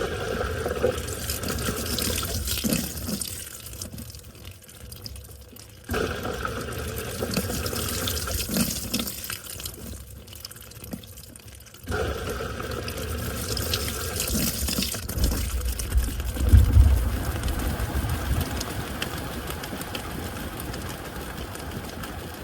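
Washing machine running with water in the drum. The sound comes in three spells that each start suddenly, about six seconds apart, with a low rumble near the end.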